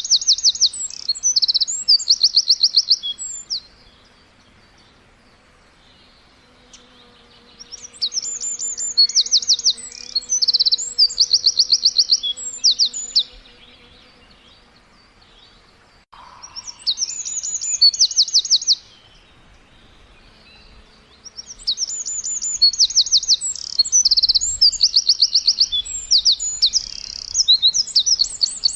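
Songbirds chirping in bouts of a few seconds, each a fast run of high, evenly repeated notes, with quieter pauses between the bouts.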